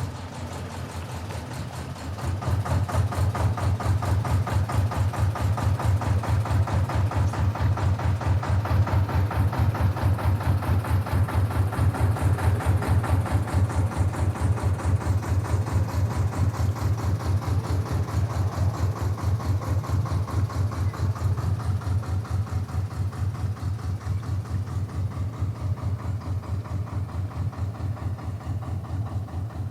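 Canal narrow boat's diesel engine running with a slow, regular pulsing beat, a few beats a second. It gets louder about two seconds in as the boat gets under way, then eases off slightly near the end.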